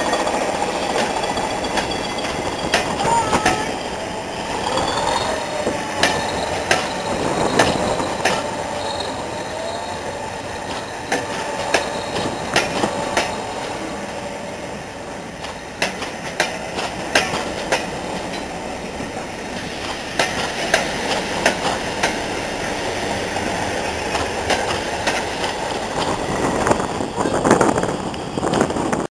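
Hastings diesel-electric multiple unit 1001's green coaches rolling past, wheels clicking irregularly over rail joints.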